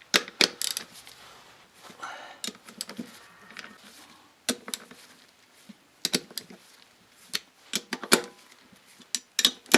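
Irregular metallic clicks and knocks of hand tools on the aluminium crankcase of a Honda Dio scooter engine as the case bolts are tightened criss-cross to draw the two halves together.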